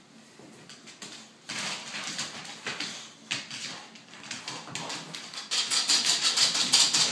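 Scuffling on a hardwood floor as a boxer puppy pounces on a dust mop: the puppy's claws scrabble and the mop head swishes and scrapes across the boards. It starts about a second and a half in and is busiest in a rapid run of scratchy clicks near the end.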